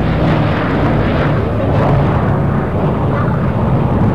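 Boeing B-17 Flying Fortress's four Wright R-1820 Cyclone radial engines droning loudly and steadily as the bomber makes a low pass overhead.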